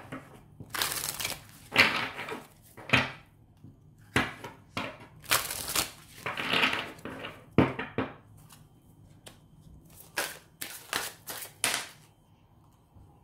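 A deck of oracle cards shuffled by hand: an irregular run of papery swishes and sharp card taps, with short pauses between bursts.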